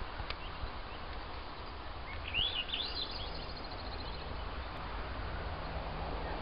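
A songbird sings one phrase of rising whistled notes about two seconds in, ending in a fading run of quick notes, over a steady low outdoor background.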